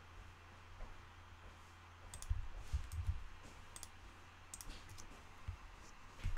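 Scattered sharp clicks of a computer mouse, a handful over several seconds, with a few dull low knocks about two to three seconds in and again near the end.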